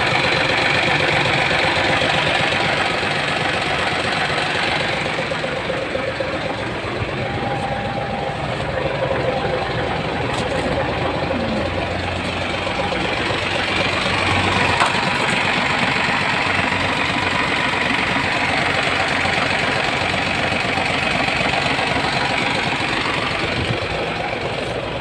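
Hino E13C inline-six diesel engine in a Hino 700 truck idling steadily, with the rough idle the title puts down to a malfunctioning number 5 injector.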